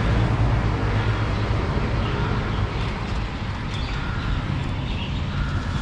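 Urban street ambience: a steady low traffic rumble with faint, scattered sounds above it.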